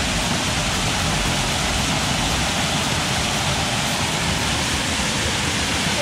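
Waterfall pouring into a shallow rock pool: a steady rush of falling and splashing water.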